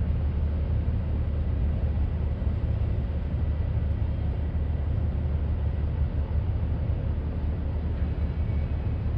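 Low, steady rumble of the Viking Line cruise ferry Gabriella's engines as the ship manoeuvres away from the quay on departure, with a faint thin hum above it.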